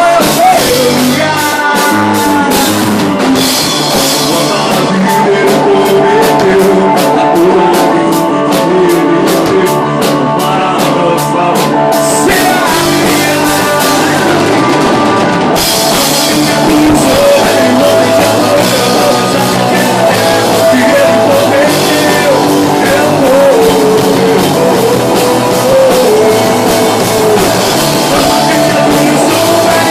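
A live band rehearsing a rock-style worship song, with drum kit, guitar and singing. The cymbals and high end drop out for a few seconds about halfway through.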